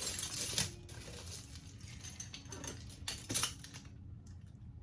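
Metal costume jewelry clinking and jangling as pieces are handled and dropped: a short rattle at the start, a few light clinks, and a sharper clink a little after three seconds in.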